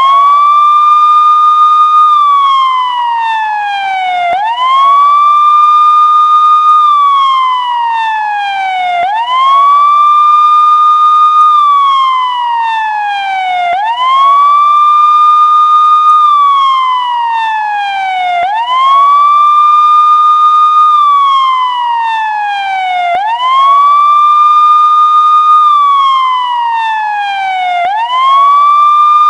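Police siren on a slow wail. Each cycle rises quickly, holds its high note for about two seconds, then falls steadily back down, repeating about every four and a half seconds. It is a clean, steady tone with no engine or traffic under it.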